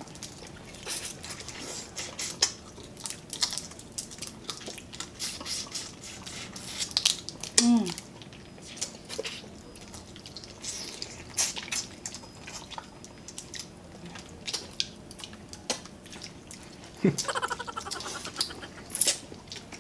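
Close-up eating sounds of people eating alimasag (blue swimming crab) cooked in coconut milk by hand: a steady run of sharp wet clicks and smacks from crab shell being picked apart, meat being sucked out and chewed. A short falling hum comes about eight seconds in.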